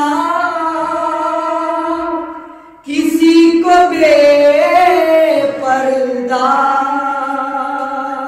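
A man's solo voice singing Urdu devotional poetry in tarannum style, drawing out long held notes. The voice fades and breaks off about two and a half seconds in, then comes back with another long sustained phrase.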